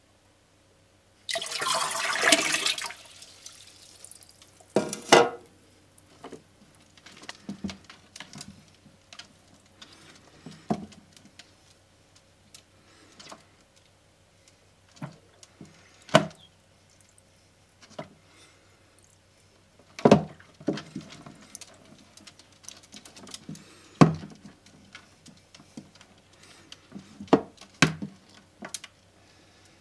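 Water splashing as it is tipped from a cup into an aquarium about a second in, a burst of roughly a second and a half. After that come scattered short splashes and knocks in the shallow tank water as a big-headed turtle moves about after the feeder goldfish.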